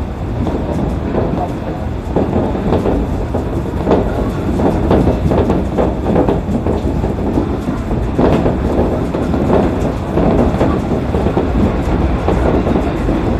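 Shonan Monorail suspended (SAFEGE) rubber-tyred monorail car running, heard from inside the cab: a steady low rumble with frequent irregular rattles and knocks as the car shakes on the overhead track.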